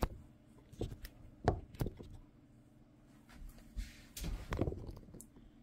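Soft handling knocks and thuds: a few separate knocks in the first two seconds, then a short rustle and a cluster of dull thuds a little past the middle.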